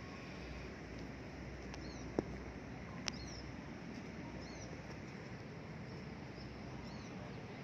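Small birds chirping: short high chirps every second or so over steady outdoor background noise, with two brief clicks about two and three seconds in.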